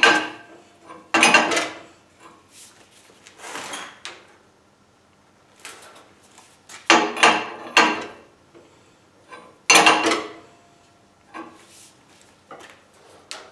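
Screw-type frame puller being tightened by wrench against a chain: short metallic clanks and creaks come in irregular bursts, a few close together near the middle, as the puller takes up load on the bent front frame rail.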